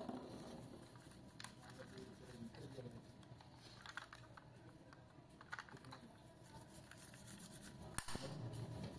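Faint clicks, taps and scratchy handling noises from fingers working a small diecast Rolls-Royce Cullinan model car as it is turned over and pressed on. A sharper click comes near the end.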